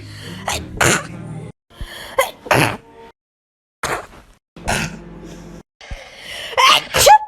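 A string of human sneezes, about eight short, sharp bursts, some coming in quick pairs, with brief silent gaps between them.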